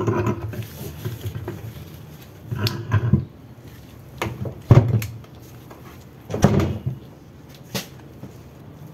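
A heavy torque converter being worked off a Turbo Hydra-Matic 350 transmission's input shaft and set down on a workbench: several separate metal scrapes and knocks, the loudest about four and a half seconds in.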